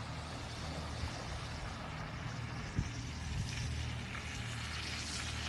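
Bicycle riding through shallow flood water toward the microphone, its tyres hissing and splashing, growing louder in the second half over a steady low rumble. A single sharp click a little under three seconds in.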